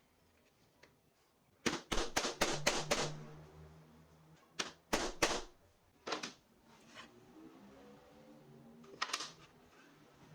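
A quick run of about six sharp knocks and clicks from hard objects, then a few more scattered single knocks and a short cluster near the end.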